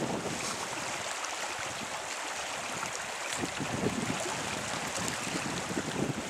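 Small creek flowing over shallow riffles, a steady rushing, with gusts of wind buffeting the microphone a few times.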